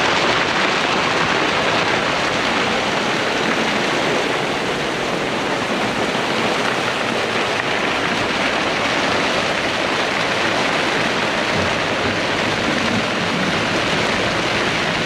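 Heavy wind-driven rain and strong wind, gusting around 35 knots, beating on a sailboat: a loud, steady rush of noise.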